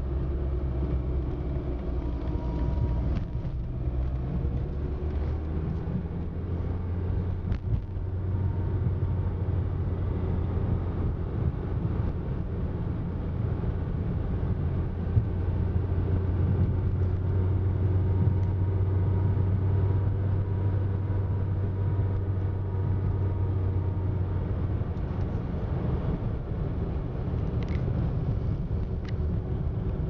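A car's engine and tyre road noise heard from inside the cabin while driving: a steady low drone whose engine note shifts about eight seconds in and again near the end.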